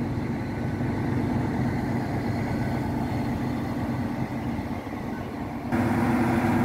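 Diesel train engine idling, a low steady rumble. A little over five seconds in it cuts abruptly to a louder idle with a steady low hum.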